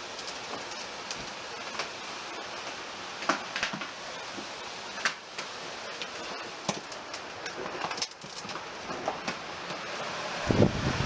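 Steady rush of flowing river water with a few scattered light knocks and crunches. Wind starts buffeting the microphone near the end.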